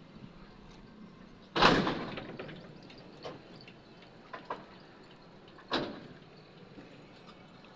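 A loud slam or bang about a second and a half in, then a few lighter knocks, and another sharp knock a little before six seconds.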